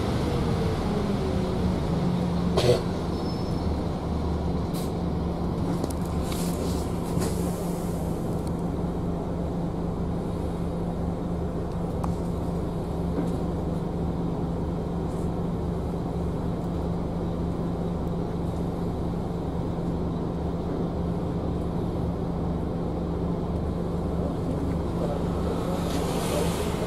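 Bus engine running steadily with road noise, heard from inside the passenger cabin while it drives, with one sharp knock about three seconds in and a few fainter rattles after it.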